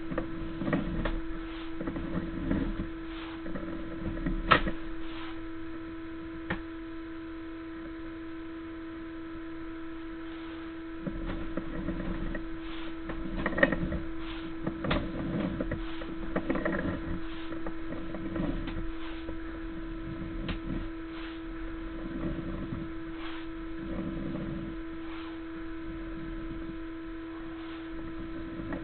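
Steady electrical hum from a sewer inspection camera system, with irregular scraping and knocks every second or two as the camera is pushed along the drain line, and a few sharp clicks.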